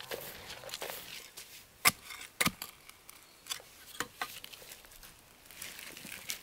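Irregular sharp clicks and knocks, a few close together about two seconds in, with a scratchy rustle between them.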